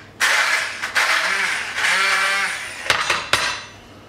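Hand-held stick blender pureeing soft roasted beetroot in a jug, run in bursts, its motor pitch rising and falling as it works through the beetroot. About three seconds in come two sharp knocks, and then the blender stops.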